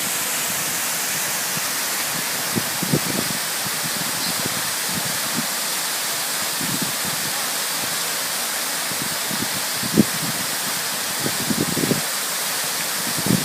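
Waterfall rushing steadily, with a few short low thumps breaking through it now and then.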